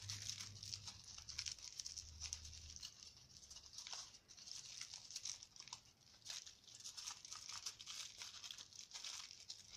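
Aluminium foil crinkling and crackling in irregular bursts as it is squeezed and wrapped around a wire figure.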